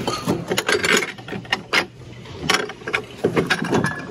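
Ceramic dishes and glassware knocking and clinking together in a series of irregular short clicks and clatters as they are handled and shifted in a bin.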